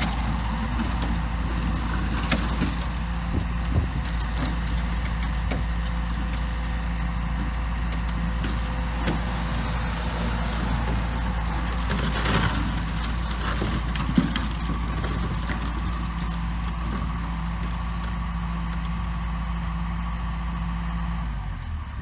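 Cat 316 excavator's diesel engine running steadily as the machine works on a steel fuel tank, with a handful of sharp knocks on top. The sound cuts off just before the end.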